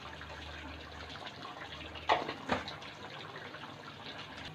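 Chicken in gravy simmering in a pan, a steady low bubbling hiss, with two short knocks a little after two seconds in.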